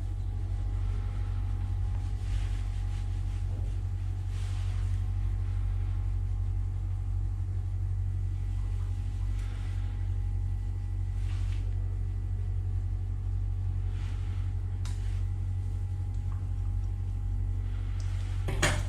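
Electric pet grooming clipper running with a steady low hum, with soft brushing noises now and then as it passes through the fur.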